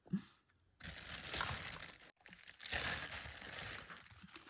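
Clear plastic bag crinkling and rustling as a cookware pot is pulled out of it, in two stretches with a brief pause between.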